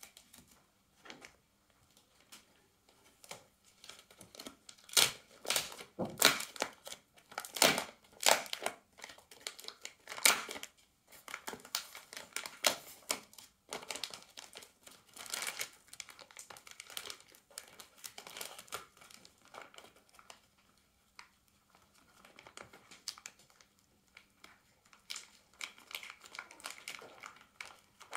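Plastic protective film and strapping tape crinkling and tearing as they are peeled off a 3D printer's glass door. The sound comes as irregular crackles and rips, loudest in the first half.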